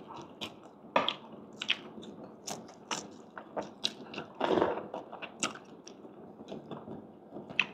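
Close-up chewing of crispy fried pork: sharp crunches several times a second, with a longer, louder stretch of crunching about four and a half seconds in.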